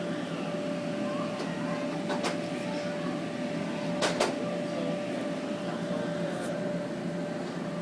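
Vacuum cleaner running steadily, a constant motor hum with a steady whine, with a few light knocks about two and four seconds in.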